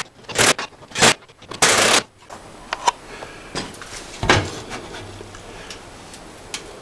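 Workshop handling noise: three short scraping or rustling bursts in the first two seconds, the last about half a second long, then a few lighter clicks and knocks.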